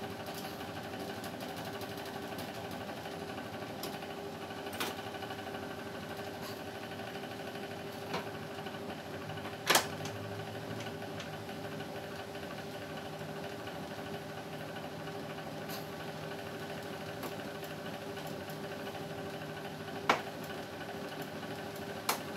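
A steady mechanical hum, with a handful of sharp plastic clicks and knocks as the indoor unit of a wall-mounted split air conditioner is handled; the loudest knock comes about ten seconds in, another about twenty seconds in.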